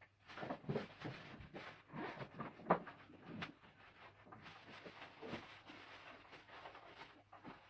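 Faint rustling and crinkling of a large white wrapping sheet being folded and pressed into a cardboard box, with scattered small knocks and one sharper click a little under three seconds in.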